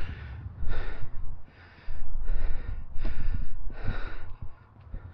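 A man's heavy breathing while walking, about five loud breathy puffs roughly a second apart, over a low rumble.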